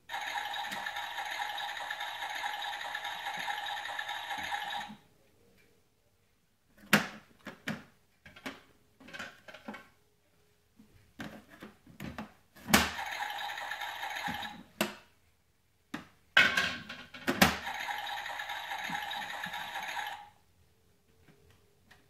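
Toy washing machine running in three spells of a few seconds each with a steady, even sound, stopping abruptly each time. Between the runs, sharp plastic clicks and clatter as its door and buttons are worked.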